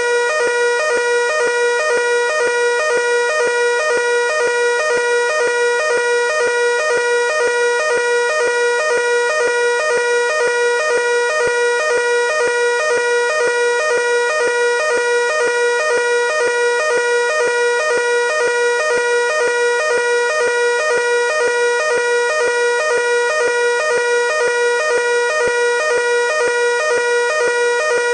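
Building fire alarm sounding its evacuation signal: a loud, shrill electronic tone with many overtones, pulsing at a fast, even rate without a pause.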